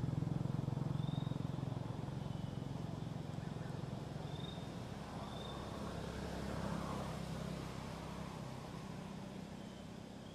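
Motor vehicle engine running, a low pulsing hum that slowly fades, with a brief swell about six to seven seconds in. Short high chirps sound now and then over it.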